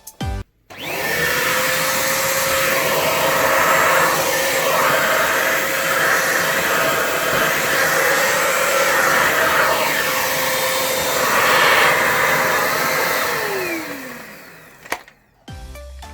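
PROTECH Kingva bagless vacuum cleaner switched on: its motor spins up within a second to a steady whine over loud rushing air. It runs for about twelve seconds, then is switched off and winds down with a falling whine, followed by a click.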